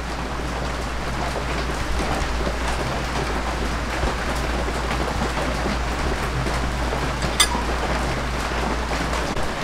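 A steady hiss like rain, with a low hum under it and a single faint click about seven seconds in; the hum and hiss drop away just before the end.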